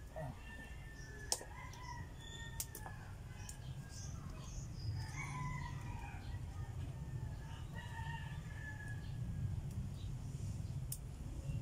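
Rooster crowing, several long crows one after another, over a steady low rumble. A few sharp clicks come through, the loudest about a second in.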